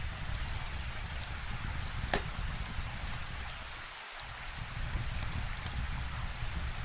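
Steady rain falling, with a wood fire crackling and snapping in sharp pops, the loudest about two seconds in, over a low rumble.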